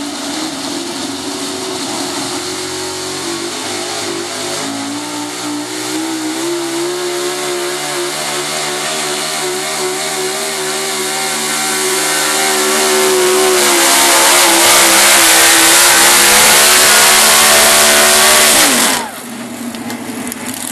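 Super stock 4x4 pulling truck's engine revving up and running flat out under load as it drags the sled, its pitch held high and steady and getting louder about two-thirds of the way through. Near the end the engine winds down sharply, pitch and loudness dropping together as the pull ends.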